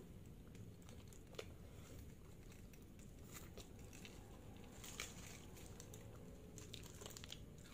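Faint crinkling of aluminium foil wrapped around a shawarma kebab as it is handled and peeled back, with soft biting and chewing.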